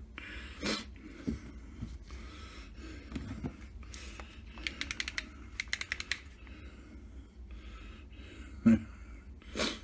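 Handling noises from a cooked ham bone being turned over in the hand: scattered light clicks and scrapes, a quick run of clicking about halfway through, and two louder knocks near the end.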